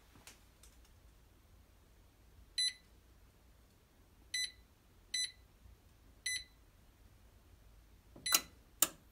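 Samsung oven control panel beeping four times as its keys are pressed to set the bake temperature, each a short, high electronic beep. Near the end come two louder sharp clicks, a fraction of a second apart.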